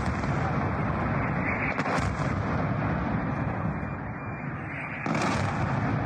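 Explosions recorded on a phone during a night strike: a continuous loud, distorted rumble with a sharp crack about two seconds in, turning harsher and brighter about five seconds in.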